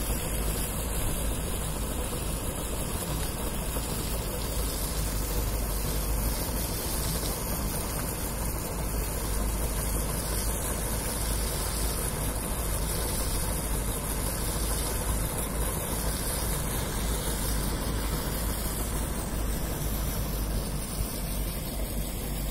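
Compost turning machine running steadily as it churns wet straw compost for button mushrooms, a continuous engine-and-machinery drone with no pauses.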